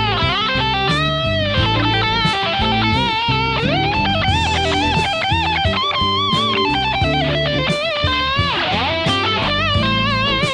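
Background rock music led by an electric guitar playing a bending, sliding lead melody over bass and drums.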